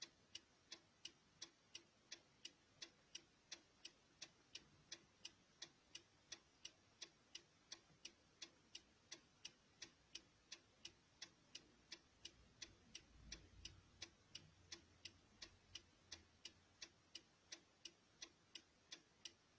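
Car direction indicator (turn signal) ticking steadily, about three ticks a second. A faint low rumble swells briefly about two-thirds of the way through.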